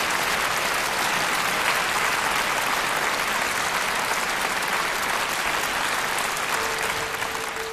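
Concert audience applauding, a dense steady clatter of many hands that begins to die away near the end. A single steady tone starts under the fading clapping near the end.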